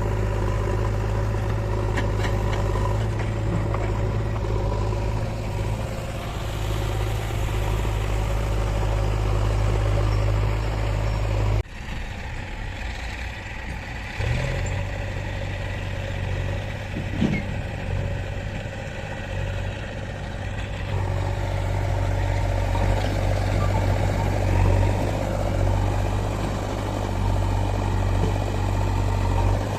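Heavy diesel engine running steadily, with a low steady hum. About twelve seconds in, the sound cuts abruptly to a different engine sound. A brief sharp knock comes a few seconds later.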